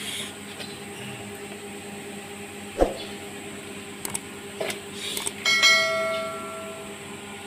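Subscribe-button sound effect: a few sharp mouse clicks, then a bell chime about five and a half seconds in that rings briefly and fades, over a steady hum.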